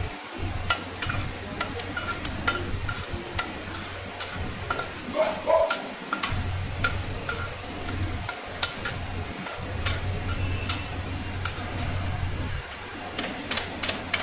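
Peanuts frying in hot oil in an aluminium kadhai, with a perforated metal skimmer stirring and scooping them, giving many irregular clicks and taps of metal on the pan over a light sizzle. A steady low hum runs underneath.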